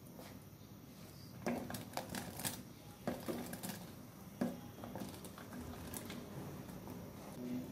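Pieces of raw green jackfruit dropped into a steel pot of boiling water, a series of short plops and knocks, most of them between about one and a half and four and a half seconds in, over a low hiss.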